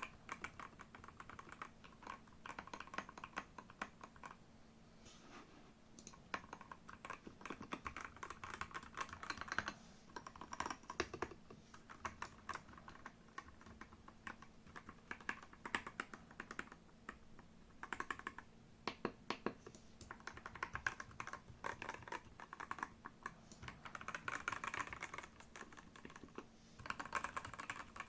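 Typing on a NextTime 75 mechanical keyboard with Gateron G Pro Red linear switches and XDA-profile keycaps: runs of quick keystroke clacks broken by short pauses.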